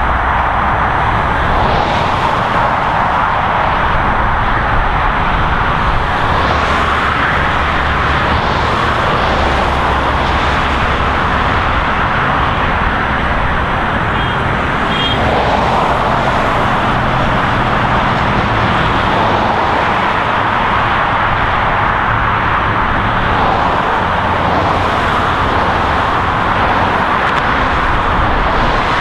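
Dense highway traffic: a continuous stream of vehicles passing, tyre noise and engine rumble swelling and fading as individual vehicles go by.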